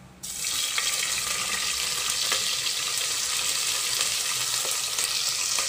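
Sliced onions tipped into hot oil in a pressure cooker, starting to sizzle suddenly a quarter of a second in and then frying in a loud, steady sizzle with a few pops.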